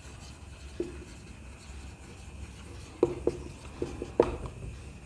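Marker pen writing on a whiteboard: faint scratchy strokes, with a cluster of several sharper strokes and taps about three to four seconds in.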